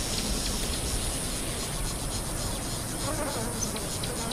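Steady insect chorus, a high shrill trilling drone, over a low rumble.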